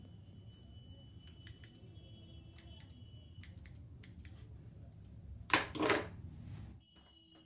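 Barber's scissors snipping beard hair in a few short crisp snips over a steady low hum. About five and a half seconds in comes a louder rustling burst, the loudest sound, as the cloth draped over the customer's chest is handled.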